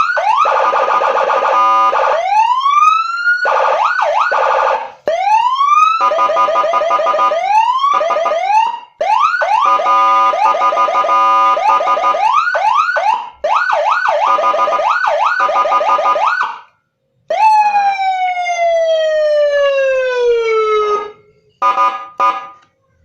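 A 40-watt Senken electronic siren module sounding through a speaker and stepping through its tone patterns. First comes a string of fast rising sweeps over steady tones, in sections split by short breaks. About 17 seconds in there is a long falling tone, and near the end come short blasts of a steady horn-like chord.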